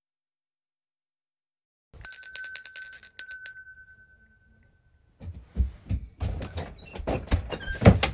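A small hand bell is shaken after about two seconds of silence. It rings rapidly for about a second and a half and dies away. After a short pause come rustling and knocking handling sounds, with a loud thump near the end.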